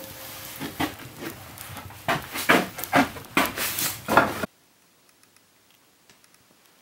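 Wood fire crackling and popping in the open firebox of a cast-iron wood stove: a quick, irregular run of sharp cracks that cuts off suddenly about four and a half seconds in, leaving near silence with a few faint ticks.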